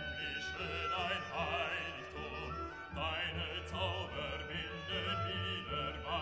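Background classical-style music: a wavering, vibrato melody over a steady low bass.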